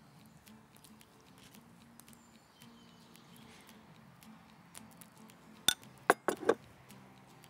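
Metal spoon clinking against a ceramic bowl: four sharp clinks within about a second, near six seconds in, after quieter ticks of the spoon scraping dressing onto burger buns.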